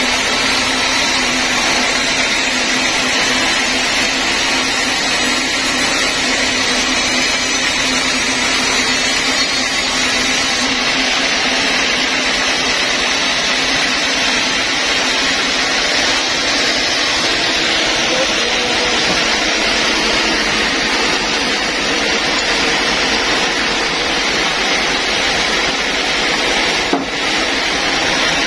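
Band sawmill running, its blade cutting lengthwise through a log: a loud, steady machine noise.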